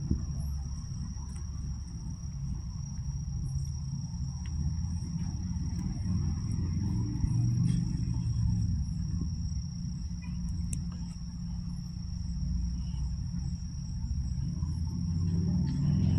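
A steady, high-pitched insect drone, one unbroken tone, over a louder low rumble.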